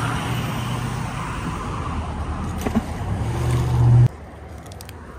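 Road traffic close by: a steady low engine hum that grows louder, then cuts off suddenly about four seconds in, leaving a quieter background with a few faint clicks.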